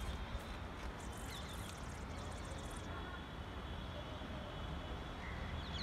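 Low, steady wind noise on the microphone, with a few faint, short bird chirps.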